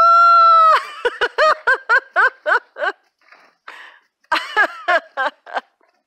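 High-pitched voice: one long held squeal, then a run of short falling yelps at about four a second, a pause, and a second run.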